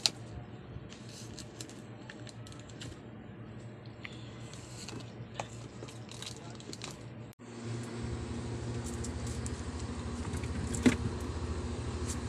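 Plastic shrink-wrap crinkling and small plastic drink bottles clicking against each other as the wrap round the pack is cut open. After a sudden break about seven seconds in, a steady low hum sets in, with more clicks and one sharp click of a bottle being set down.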